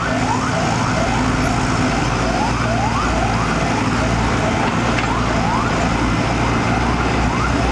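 Diesel engine of a Samsung wheeled excavator running steadily while it digs, under a repeating rising electronic warning tone, about three chirps a second.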